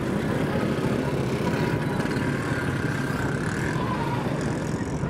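Motorcycle engine running steadily while riding, mixed with road and wind noise and the sound of nearby traffic.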